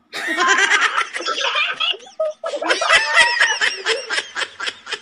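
Several people laughing together in two long fits, with a short break about two seconds in.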